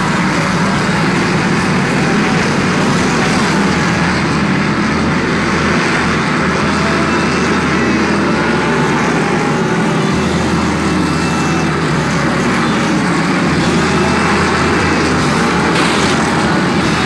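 Stock cars racing around a short oval track, their engines loud and steady as the pack runs past.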